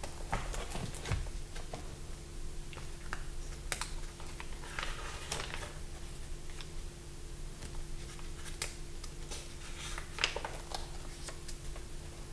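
Sketchbook pages with pasted-in prints being handled and turned by hand: scattered paper clicks and crinkles, with two longer rustles about five and ten seconds in.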